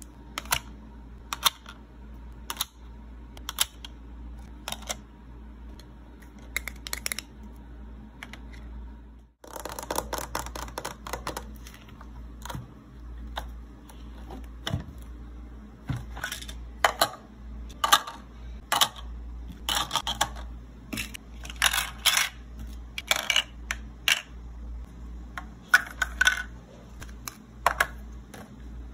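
Hard plastic toy food and plastic containers being handled: irregular sharp clicks and taps as pieces are set down and moved, over a low steady hum. There is a short break about nine seconds in.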